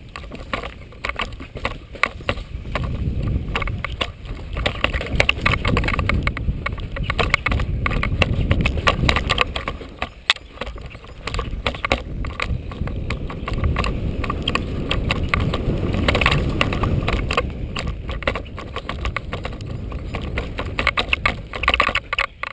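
Downhill mountain bike riding fast down a dirt trail: a dense, irregular clatter of the chain and frame rattling and knocking over bumps, over a low rumble from the tyres on the dirt that swells and fades, easing briefly about halfway through.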